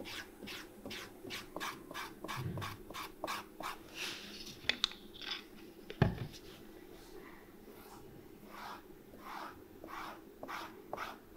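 Dye dauber stroking black leather dye onto the surface of a leather sole in quick short strokes, about two to three a second. One louder knock on the wooden bench about six seconds in.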